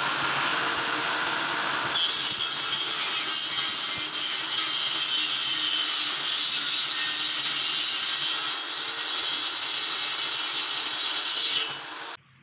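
Table saw ripping a veneered wood board, the blade running steadily under load; the sound eases near the end and then cuts off abruptly.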